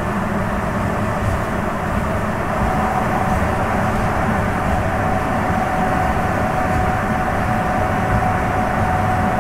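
Sapporo Subway 9000-series rubber-tyred train running through the tunnel, heard from inside the car: a steady rumble of running noise, with a thin steady whine that grows stronger about two and a half seconds in.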